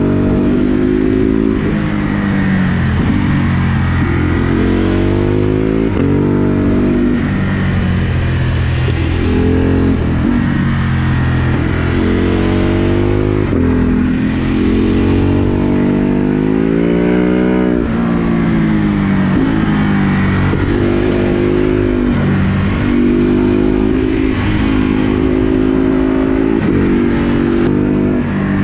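Ducati Hypermotard 950 SP's 937 cc L-twin running through an aftermarket Dekat exhaust, heard from the rider's seat while riding. The engine note climbs under acceleration and drops back off the throttle, over and over.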